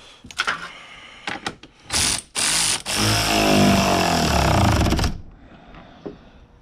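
A few clicks and two short sharp bursts, then a small motor running loudly for about two seconds, its pitch wavering, and stopping suddenly.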